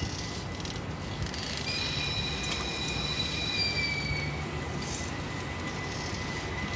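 Passenger train rolling by with a steady rumble. From about two seconds in until past four seconds, its steel wheels give a high, steady squeal of several tones at once.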